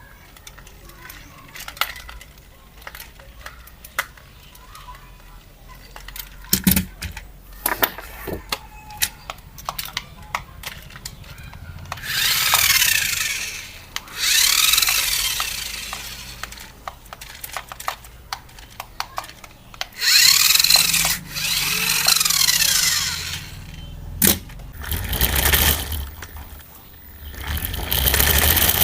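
Clicking and knocking from handling a toy RC rock crawler. Then its small electric motors and gears whir in several bursts a second or two long, the pitch sweeping up and down as it is driven.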